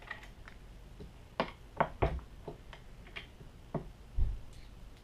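Irregular light clicks and knocks from a Hornady single-stage reloading press as its lever and ram are worked and a .44 Magnum cartridge is taken out of the shell holder. Two duller thumps, one about two seconds in and a louder one near the end.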